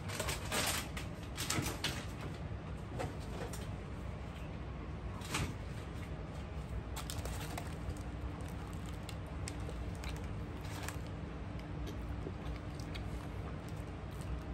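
Kitchen handling sounds over a steady low hum: knocks and rustles of groceries going into a refrigerator, bunched in the first couple of seconds and again about five seconds in. Lighter ticks and crinkles of a paper hot dog wrapper follow.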